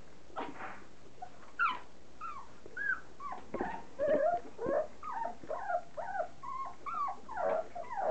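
A litter of standard poodle puppies whining, a stream of short squealing calls that bend up and down in pitch. A few come in the first second and a half, then several a second, overlapping from more than one puppy.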